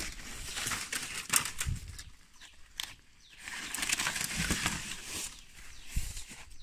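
Dry bamboo culm sheaths and leaf litter rustling and crackling in irregular bursts as a large dry sheath is grabbed and pulled from the bamboo.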